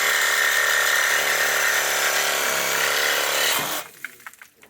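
A power tool running steadily at full speed, stopping abruptly about three and a half seconds in, followed by a few light clicks and knocks.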